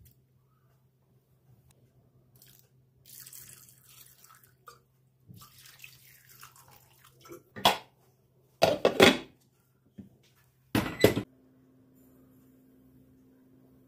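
Water from a kitchen tap splashing into a sink in short bursts, three loud ones in the second half, after a few softer trickles. A faint steady hum runs underneath and shifts higher after the last burst.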